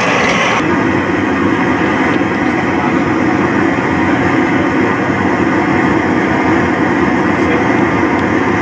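Steady roar of the solder-pot furnace's gas burner, which heats the copper hand irons. A higher hiss cuts off about half a second in.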